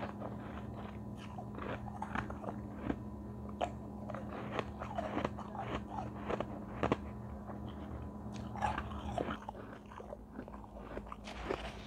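Close-up crunching of soft, snowy ice being bitten and chewed: many irregular crisp crunches over a steady low hum.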